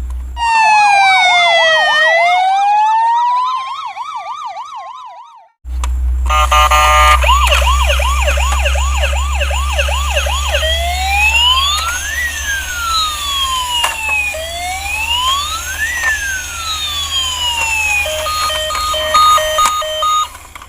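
Toy ambulance's electronic siren cycling through its sound patterns: first a fast warbling tone that cuts off about five seconds in, then a quick repeated yelp, then a slow rising and falling wail, and a run of steady beeps near the end. A steady low hum runs under it.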